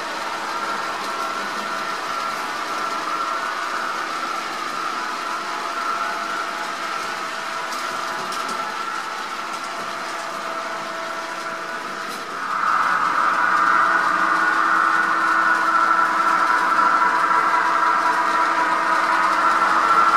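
Model Pennsylvania Railroad GG1 and P5b electric locomotives running with a freight train, their sound decoder playing a steady electric-locomotive hum of several held tones. It gets louder about twelve seconds in.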